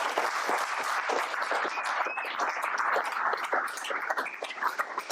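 Audience applauding: many hands clapping in a dense patter that eases off slightly near the end.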